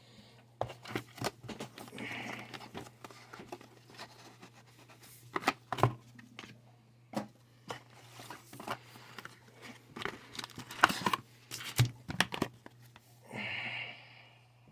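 Packaging being torn open and crinkled: the plastic wrap and cardboard of a Pokémon trading card booster bundle box being opened by hand, with irregular rustles, tears and small clicks.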